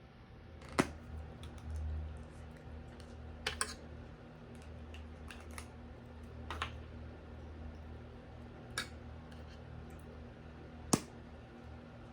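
A few sharp light clicks and taps at irregular intervals, about eight in all, over a faint steady low hum.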